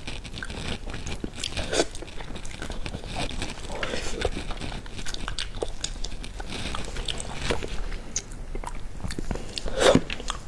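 A person eating anglerfish close to the microphone: bites and chewing with many small wet clicks and smacks, and a louder bite near the end.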